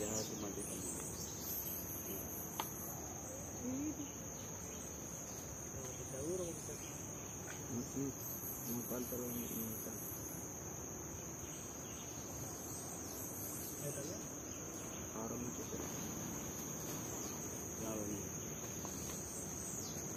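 Insects giving a steady, unbroken high-pitched trill, with faint voices now and then underneath.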